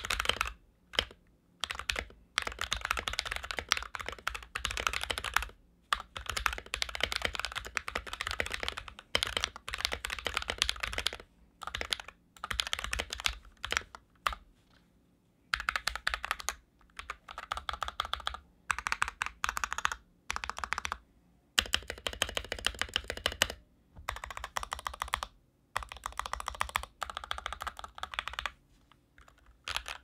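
Typing test on an NK65 entry-level mechanical keyboard fitted with its stock keycaps: fast, dense key clicks in runs of a few seconds, broken by short pauses.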